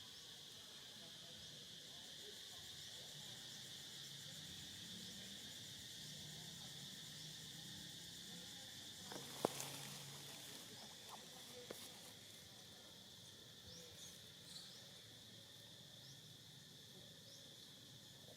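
Faint, steady insect chorus, an even high-pitched drone. One sharp click about nine and a half seconds in is the loudest sound, followed by a few fainter ticks.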